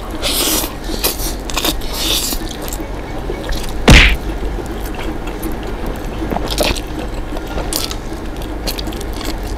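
Two people slurping and chewing instant ramen noodles, with short wet slurps coming on and off and one much louder sharp sound about four seconds in.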